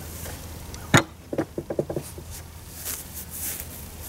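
A heavy wooden beam of 2x6s being handled: one sharp knock about a second in, then a quick run of five or six lighter knocks.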